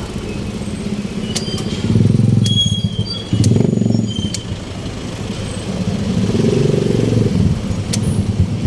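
Street traffic with motorcycle and other vehicle engines running, swelling louder as vehicles pass about two and three and a half seconds in, with scattered sharp clicks and a few short high chirps.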